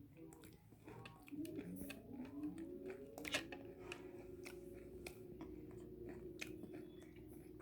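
Close-up chewing and biting of crispy piaji (fried onion fritters), with scattered crunches and one louder crunch midway. Under the chewing, a faint tone rises about a second in and then holds steady.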